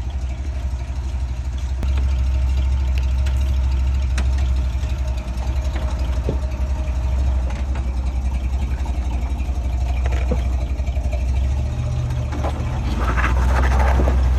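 Off-road vehicle engine running steadily at low revs, getting a little louder about two seconds in and again near the end.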